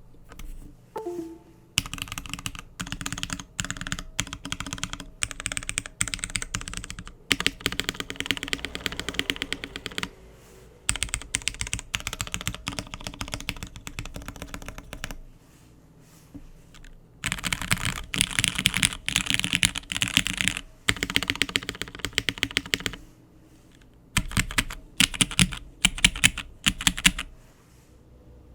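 Matrix Vita custom mechanical keyboard with lubed and filmed Hyperglide linear switches, an aluminium plate and GMK Kaiju keycaps, typed on fast in bursts of a few seconds with short pauses between. Near the end come several separate, deeper key strikes.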